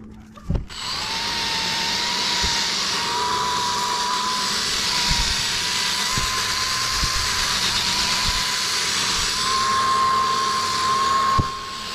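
Cordless drill spinning a 1500-grit wet sanding disc against a plastic headlight lens: a steady motor whine over the hiss of the sanding. It starts about a second in, rises a little in pitch near the end and stops suddenly just before the end.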